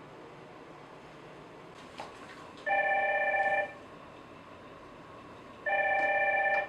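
Telephone ringing for an incoming call: two electronic rings, each about a second long with a fast warble, about three seconds apart. A faint click comes just before the first ring.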